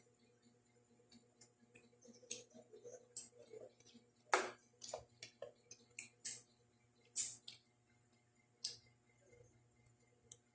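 Close-miked eating sounds: irregular sharp smacks and clicks of chewing and lip-smacking, about one or two a second, the loudest about four seconds in.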